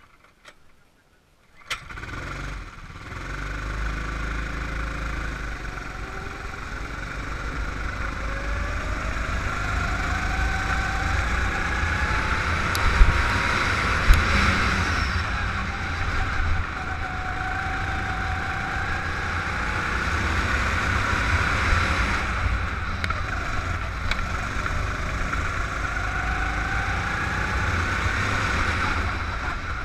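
Kart engine catching about two seconds in, then running as the kart laps the circuit, its pitch rising and falling again and again with acceleration and lifting for the corners. Two sharp knocks about halfway through.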